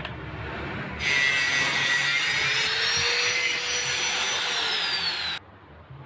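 Power cutting tool running and cutting through part of a metal gas regulator: a loud grinding noise with a high whine starting about a second in. The whine rises slightly, then falls just before the sound cuts off abruptly near the end.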